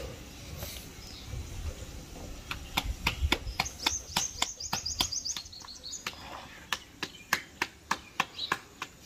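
Hands slapping paratha dough back and forth between the palms to flatten it: a run of sharp pats, about three a second, starting a few seconds in. In the middle a bird gives a rapid high trill for about two seconds.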